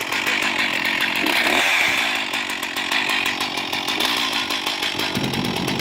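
Stihl two-stroke chainsaw running steadily and loudly.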